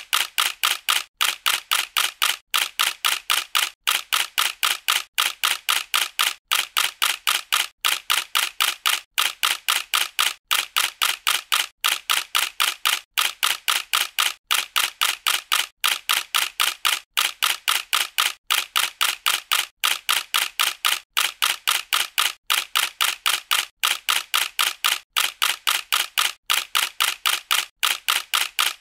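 Camera shutter sound effect clicking over and over, about four or five clicks a second in evenly repeating bursts, with a short break about every second and a quarter.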